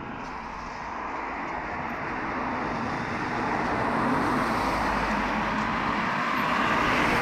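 A car approaching along the road, its tyre and engine noise growing steadily louder and loudest near the end.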